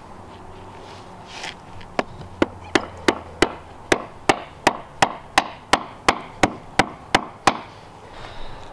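The wooden handle end of a cobble hammer tapping a sandstone cobble down into a wet mortar bed: about sixteen sharp knocks, roughly three a second, starting about two seconds in.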